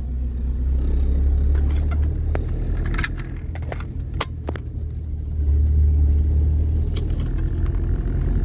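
Low rumble of a car's engine and tyres heard from inside the cabin as it drives slowly along a street, growing louder about five and a half seconds in. A few light clicks come through it.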